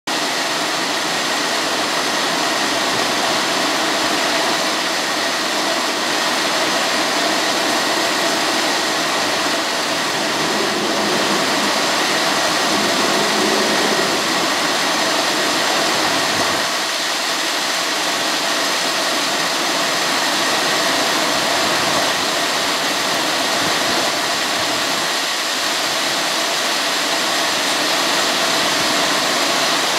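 Heavy downpour of rain pelting onto standing water over a flooded lawn and driveway, a steady, dense hiss.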